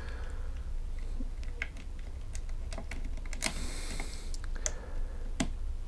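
Small irregular clicks and taps of wire spade connectors being handled and pushed back onto a power-tool switch's terminals, with a brief rustle about three and a half seconds in.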